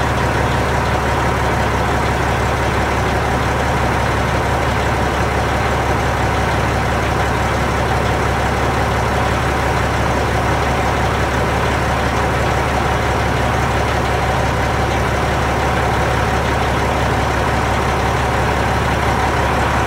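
Diesel engine of a 2005 Freightliner Columbia 120 semi truck idling steadily through a 6-inch Dynaflex Bull Hauler exhaust stack, a deep, even rumble.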